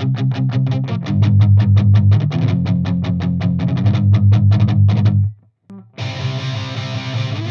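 Electric guitar through an amplifier, miked with a T-bone RM700 ribbon microphone, playing a fast picked riff of about five or six notes a second over heavy low notes. It stops about five seconds in, and after a short gap a new, more sustained chordal part begins.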